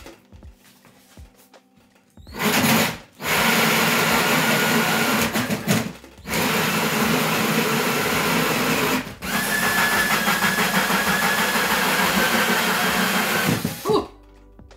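Ryobi cordless drill running a 2 1/8-inch hole saw through the back panel of a drawer cabinet: a short burst about two seconds in, then three long runs of cutting with brief pauses between, stopping just before the end. A thin high whine rides over the last run, and the saw was cutting into metal as well, which slowed the cut.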